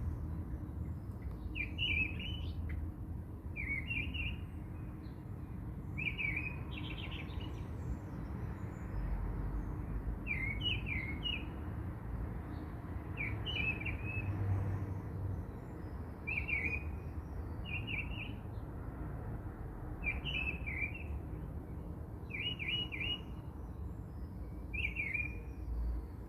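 A bird chirping, short repeated phrases every second or two, over a steady low rumble.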